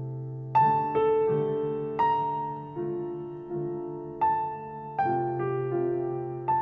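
Slow, quiet piano music: single notes struck about once a second, each ringing out and fading, over a low sustained note.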